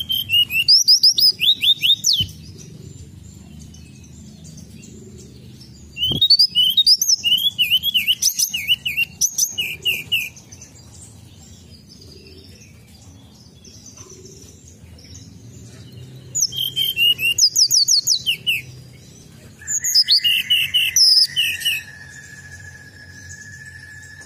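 Hill blue flycatcher singing: four short bouts of quick, high, downward-sliding whistled notes, separated by pauses of several seconds. Near the end a steady high tone sets in and holds.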